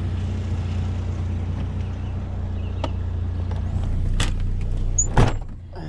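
Pickup truck engine idling with a steady low hum, a few light clicks, and one solid thump about five seconds in.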